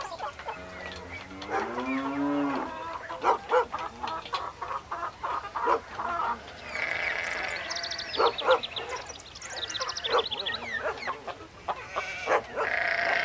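Farmyard animal sounds: a cow moos once near the start, its call rising in pitch over about two seconds. Hens cluck after it, and small birds chirp in the middle stretch.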